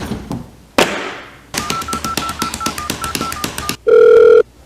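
Electronic beeping: a fast run of short beeps over rapid clicking, then one long, loud, lower beep near the end.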